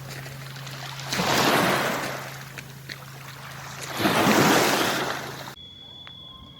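Sea waves breaking on the shore: two surges of surf about three seconds apart, each swelling and fading. About five and a half seconds in, the sound cuts abruptly to a much quieter background.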